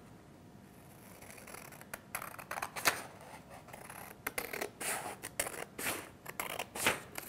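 Scissors cutting through a folded sheet of paper: a series of irregular snips that start about two seconds in.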